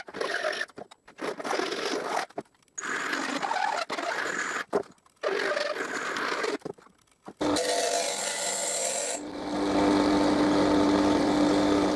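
Hand file rasping across a small aluminium piece in uneven strokes with short pauses between them. About nine seconds in, a bench grinder's motor takes over with a steady hum.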